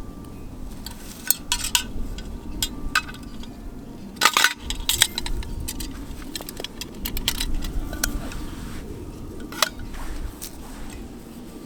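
Metal camp cookware being handled, with irregular clinks and knocks and a brief cluster of louder clatter about four seconds in.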